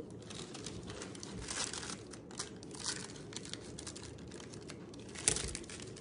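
Thin disposable plastic piping bag crinkling as it is handled and its tip is cut with scissors. A louder sharp sound comes about five seconds in.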